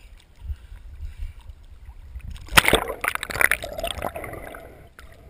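Seawater sloshing and buffeting around a camera at the surface, then a loud splash about two and a half seconds in as the diver ducks under, followed by bubbling and gurgling underwater that fades away.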